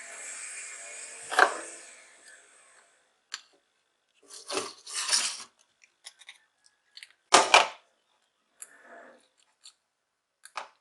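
Background music fading out in the first couple of seconds, then a series of short, sharp clicks and scrapes of small tools and electronic parts being handled during a repair, the loudest about a second and a half in and again past seven seconds.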